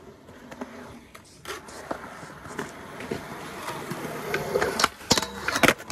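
Skateboard wheels rolling on a smooth concrete skatepark surface, with a few light clacks, then several sharp, loud board impacts near the end.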